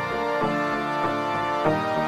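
Background music: an instrumental passage with sustained chords and a steady rhythm, no singing.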